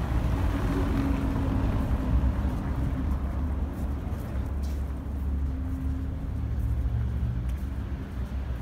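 Street ambience dominated by a steady low rumble, with the hum of a motor vehicle engine rising and falling in it.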